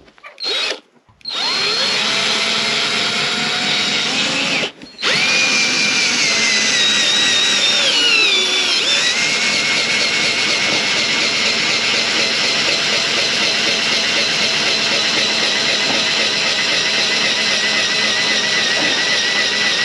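Cordless drill-driver running a bit into OSB board: a short burst, a longer run that stops briefly about five seconds in, then one long run whose motor pitch rises and sags under load before holding steady. The bit is not drilling through: its tip is worn out.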